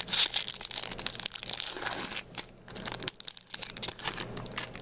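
Foil Pokémon booster pack wrapper crinkling and tearing as the pack is opened, a run of dense crackles with two short pauses.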